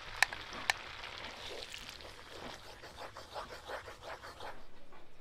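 Tomato paste sizzling and crackling in hot melted butter in a wok as it is scraped from a bowl and stirred with a wooden spoon, with two sharp taps of the spoon near the start.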